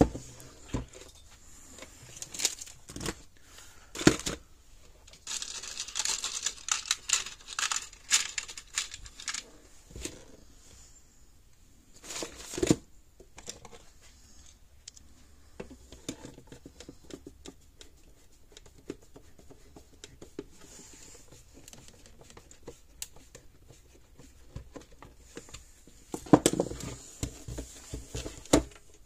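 Workbench handling noises: scattered clicks and knocks of parts and tools being picked up and set down, with a stretch of rustling and crinkling about five to nine seconds in and a short burst of clatter near the end.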